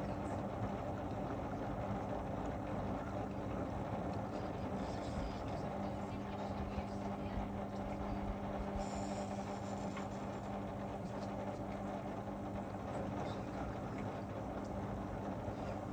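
Whirlpool FSCR 10425 front-loading washing machine running, a steady motor hum over the noise of the drum, the hum growing a little stronger about six seconds in.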